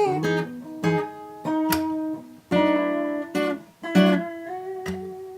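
Acoustic guitar strumming chords, a new chord struck about once a second and left to ring.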